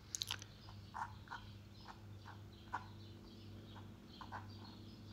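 Palette knife working heavy body white paint on a canvas panel: faint, irregular soft clicks and squelches, over a steady low hum.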